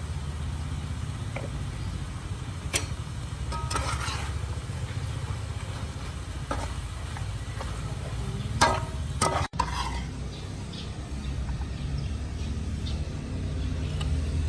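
Stir-frying: a spatula stirring and scraping green beans and beef around a frying pan, with a few short, sharper scrapes against the pan, over a steady low rumble.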